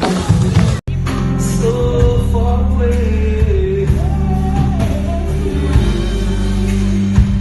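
Live pop concert sound: a female lead vocal holding and bending long sung notes over a band. The audio cuts out for an instant just under a second in.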